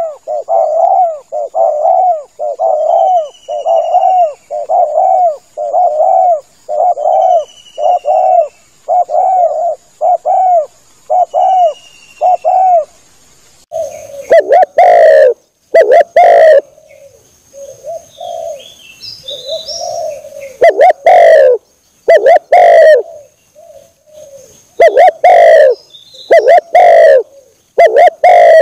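Spotted dove (tekukur) cooing in a rapid, even series of about two coos a second. About halfway the coos turn much louder and distorted, coming in irregular groups with short pauses, with faint high chirps of other small birds behind.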